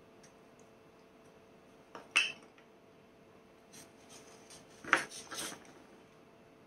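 Light handling noises of small balsa parts and tools on a work surface: a sharp click about two seconds in, a few soft ticks, then a short burst of clicks and rubbing about five seconds in, over a faint steady hum.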